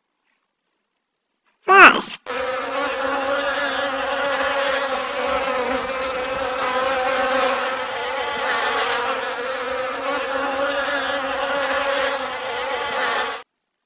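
Wasp buzzing in flight: a steady drone with a low hum and overtones that lasts about eleven seconds and cuts off suddenly near the end. It is preceded, about two seconds in, by a short loud sound that sweeps up and down in pitch.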